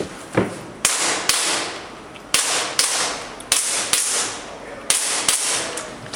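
Airsoft gun firing about eight sharp shots, mostly in quick pairs about half a second apart, each shot trailing off briefly.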